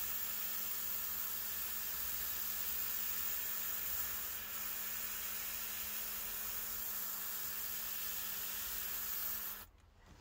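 Autolock cordless airbrush spraying pink paint: a steady hiss of air with a low hum from its built-in compressor, cutting off suddenly just before the end.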